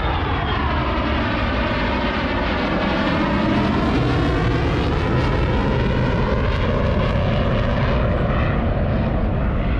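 Aircraft flying past, a loud steady engine rush with a sweeping, phasing tone that dips and then rises again as it passes.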